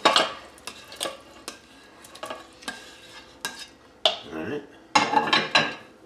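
Spatula scraping beef cubes off a plate into the Instant Pot's stainless steel inner pot: a string of irregular knocks and scrapes as the utensil strikes the plate and pot rim.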